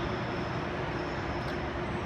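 Railway station ambience under a train-shed roof: a steady low rumble of trains and traffic with a faint steady high whine over it.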